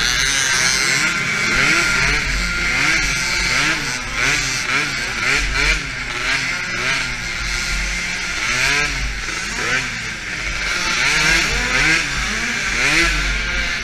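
A DRR 50 youth quad's small engine revving up and falling back over and over, about once a second, as it races, over a steady rushing noise. Other small quad engines run around it.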